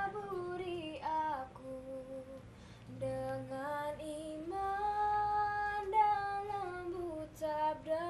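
A young girl singing solo without accompaniment, in a slow melody of long held notes that slide from one pitch to the next.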